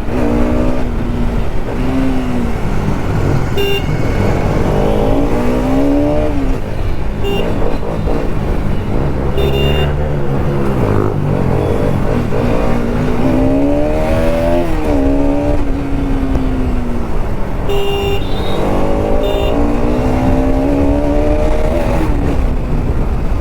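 Bajaj Pulsar RS200's single-cylinder engine pulling hard under acceleration, its pitch climbing and dropping again and again as it revs up and shifts through the gears, over wind rush.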